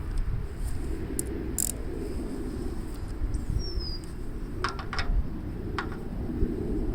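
A few light, sharp metallic clicks and taps of hand tools and cable terminals being handled at a starter switch's terminal posts, over a steady low background rumble.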